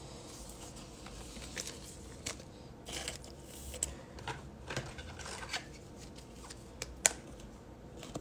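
Trading cards and a clear plastic top loader being handled: soft rustles and light clicks of card stock and plastic, with one sharper click about seven seconds in.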